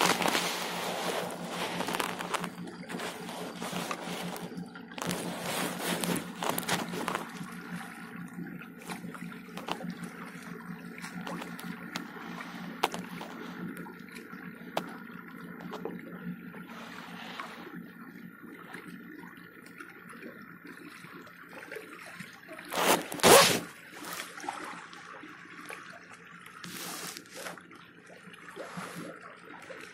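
Seawater sloshing and trickling against a small fishing boat's hull, over a steady low hum. A loud, brief noise comes about two-thirds of the way through.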